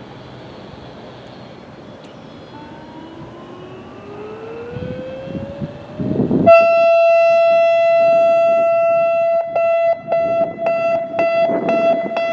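A fainter siren slowly rises in pitch. About six and a half seconds in, an ASC Alertronic AL-8000 electronic warning siren comes on abruptly with a loud, steady tone. From about nine and a half seconds in, the tone keeps cutting out in quick, uneven pulses: the 'pulse' the uploader takes for a failing siren due for replacement.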